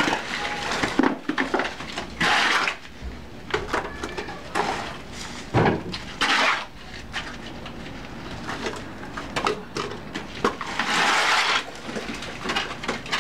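A hoe or shovel scraping and chopping through wet cement mortar on a concrete floor as the mortar is mixed by hand. It goes in several rasping strokes, each half a second to a second long, with smaller knocks and clatter between.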